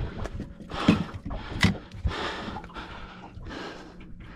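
A man breathing hard and gasping, in repeated rushes, with a few sharp knocks in the first two seconds.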